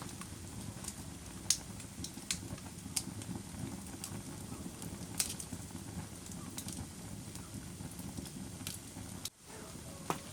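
Wood fire crackling in a fireplace: irregular sharp pops and snaps over a low, steady rumble of burning logs. The sound drops out for an instant about nine seconds in.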